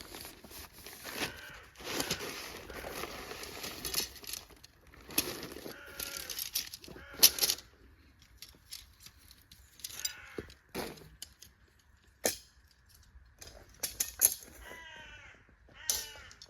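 Tent fabric rustling and crinkling as a large camping tent is handled during setup, with a few sharp clicks scattered through, the loudest about seven seconds in.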